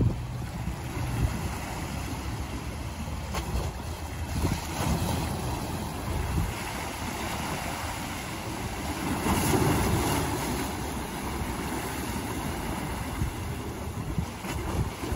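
Small lake waves splashing and washing against shoreline rocks at a concrete seawall, with wind buffeting the microphone. The water swells louder about nine to ten seconds in.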